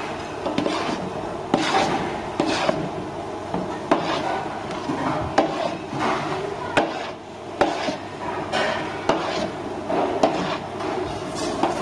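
A spoon stirring and mashing thick boiled wheat (keşkek) with butter in a large stainless-steel pot. It makes uneven scraping strokes with knocks against the pot, about one or two a second.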